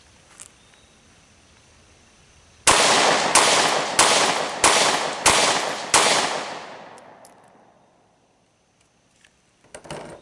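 Six rapid 9mm pistol shots from a Glock 43 single-stack, about one and a half a second, each followed by echoes that fade over a second or so after the last shot. A brief clatter near the end.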